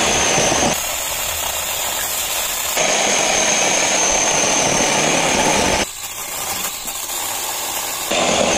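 Kebtek battery-powered handheld mini chainsaw running as it cuts through thin firewood branches: a steady high-pitched electric motor whine whose level steps abruptly up and down several times.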